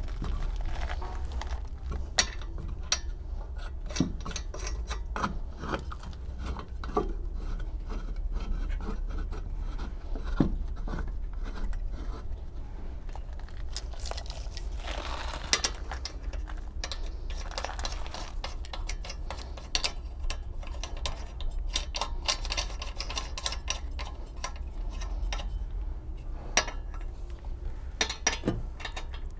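Lug nuts being threaded by hand onto the wheel studs of a spare tire: metal scraping and rasping on the threads, with scattered light clinks and taps of the nuts.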